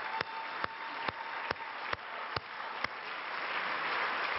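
Audience applauding, with a man's own hand claps close to the microphone standing out, about two a second, stopping about three seconds in while the applause goes on.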